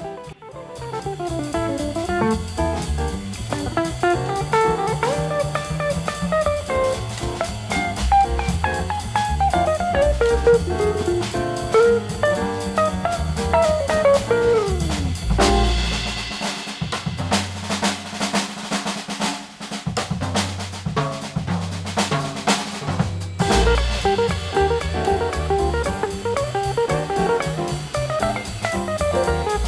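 Background music with a drum-kit beat and a melodic lead.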